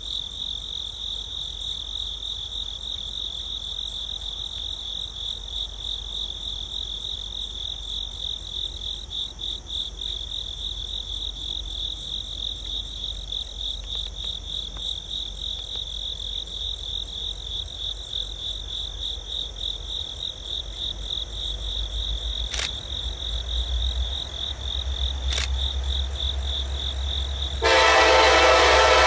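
Insects trilling steadily with a pulsing high tone while the low rumble of an approaching freight train builds in the last few seconds. Near the end the lead locomotive's horn starts a loud, sustained blast.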